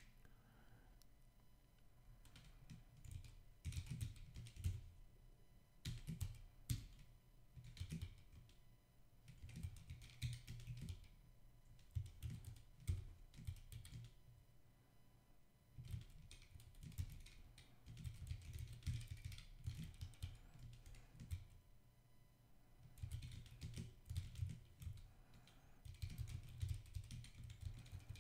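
Typing on a computer keyboard: fast runs of key clicks in spurts, with short pauses between them.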